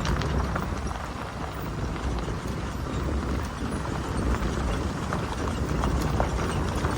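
Vehicle driving on a gravel road: tyres crunching with many small stone clicks over a low steady rumble.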